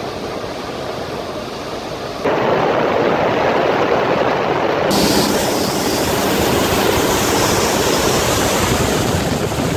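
Wind buffeting the microphone and water rushing past a motor boat running at speed, a steady roar of noise. It jumps louder about two seconds in and changes again about five seconds in, where the shots are cut together.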